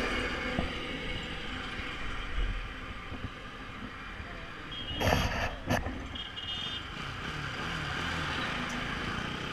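Motorcycle riding along a road: the engine running under a steady bed of wind and road noise, with other traffic going by. Two short, loud rushes of noise come about five seconds in.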